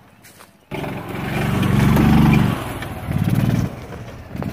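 Golf cart engine revving hard under load, starting abruptly about two-thirds of a second in. It surges twice, the first surge longer and louder, then settles lower.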